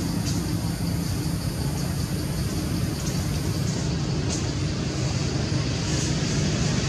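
Steady low rumble of background road traffic, with a few faint ticks.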